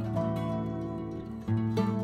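Background instrumental music with plucked notes over a low sustained bass note; a new bass note comes in about one and a half seconds in.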